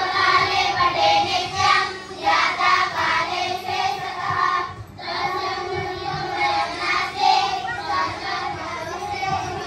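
Several children's voices singing together, with a brief break about five seconds in.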